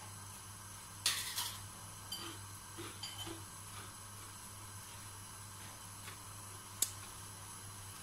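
Kitchen dishes and metal utensils clinking: a short clatter about a second in, a few light ringing clinks after it, and one sharp click near the end, over a steady low hum.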